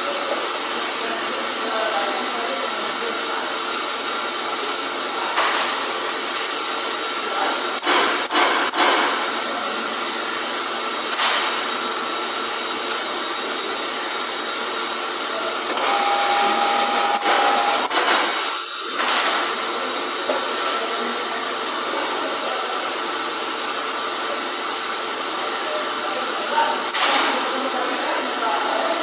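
Steady hissing machinery noise from a tube-processing machine running in a factory hall, with a few sharp clicks scattered through it and a short steady tone about sixteen seconds in.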